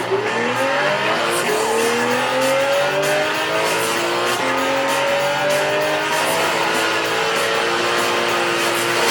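Race car engine accelerating through several gears: its pitch climbs, drops at each upshift and climbs again, with a hiss of tyre and track noise. It is played back through the M1 Pro MacBook Pro's built-in speakers as a speaker demo.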